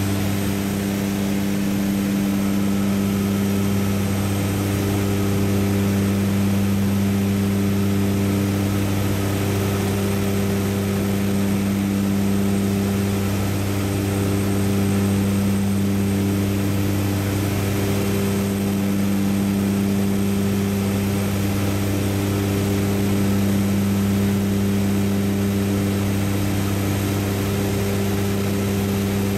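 Light propeller aircraft's engine and propeller running at a steady cruise, heard from inside the cockpit as a constant, even drone.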